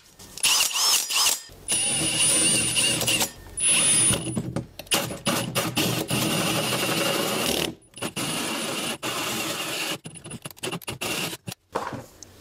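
Power tool cutting a hole through a wall, its motor whining in several runs of one to three seconds with short stops between, choppier near the end.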